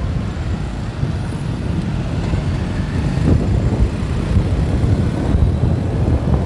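Wind buffeting the microphone, with engine and traffic noise of motorbikes on a city road, recorded from a moving motorcycle. It is a steady, fluttering low rumble with no single event standing out.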